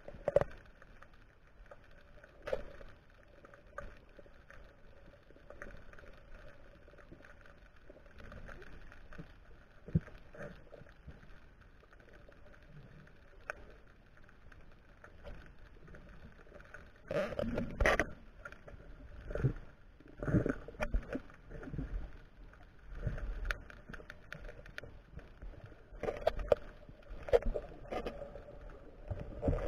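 Underwater sound picked up through an action camera's waterproof housing: a faint steady hum with scattered knocks and clunks, which come more often and louder in the second half.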